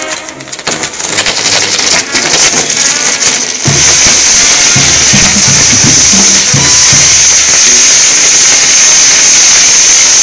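Castillo fireworks going off: crackling at first, then from about four seconds in the fire fountains and spinning wheels hiss loudly and steadily, drowning out music playing underneath.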